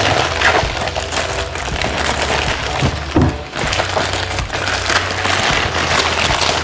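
Grey plastic courier mailer crinkling and tearing as it is cut open and pulled apart by hand, a continuous crackly rustle.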